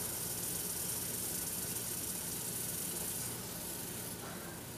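Low steady hiss of a saucepan of sugar, butter and water sizzling on the stove burner, easing a little about three seconds in.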